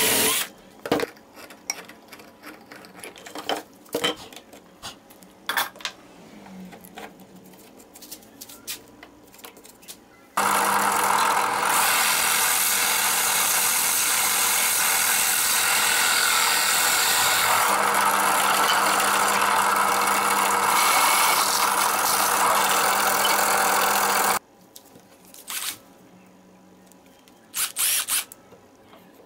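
A hand-held drill runs steadily for about 14 seconds, boring a hole through plywood with a homemade cutter. It starts and stops suddenly. Before and after it there are scattered clicks and knocks of the drill and workpiece being handled.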